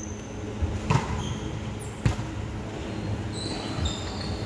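A volleyball being struck twice, sharp smacks about a second apart, with sneakers squeaking on the wooden court in between and after.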